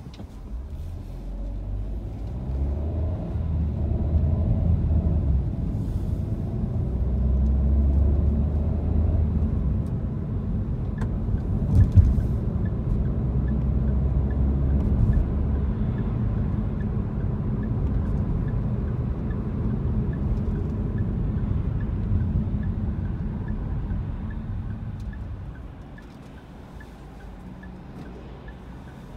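Car cabin noise while driving: a low engine and road rumble that rises about two seconds in and drops away near the end as the car slows. A faint regular ticking runs through the second half.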